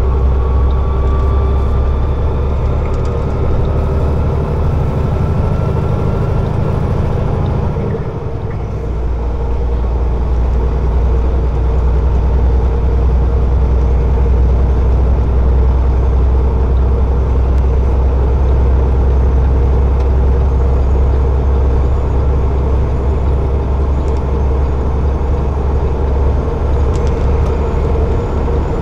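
Peterbilt semi truck's diesel engine and road noise inside the cab while under way: a steady low rumble, with a whine rising in pitch over the first few seconds and a short dip in level about eight seconds in.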